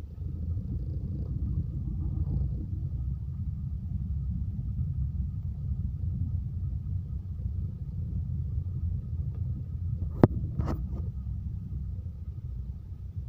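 Steady low rumble of a car driving on a rough road, heard from inside the cabin, with two sharp knocks close together about ten seconds in.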